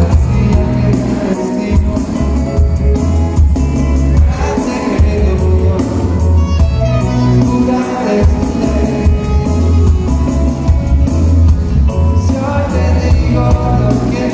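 Reggae band playing live, guitars, keyboard and drums over a heavy, pulsing bass line, recorded from among the audience.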